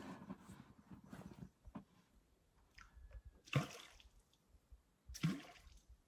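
Water splashing and dripping, with small wet handling sounds and two louder splashes about three and a half and five seconds in.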